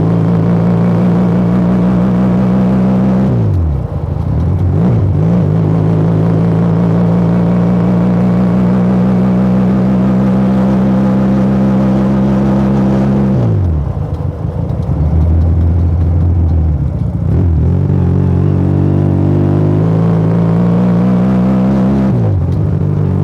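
Motomel Rider 250 motorcycle engine and exhaust under way, held at a steady pitch, with the pitch dropping sharply three times as the throttle is closed or a gear changes. A short stretch of low, even running comes about two-thirds of the way through.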